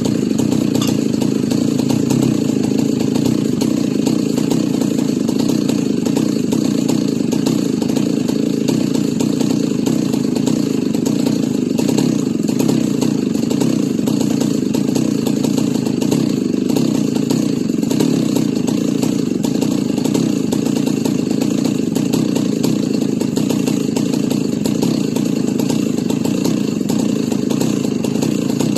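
Jonsered 70E two-stroke chainsaw idling steadily after a milling cut, left running so the hot engine can cool rather than be shut off right away and risk seizing the cylinder.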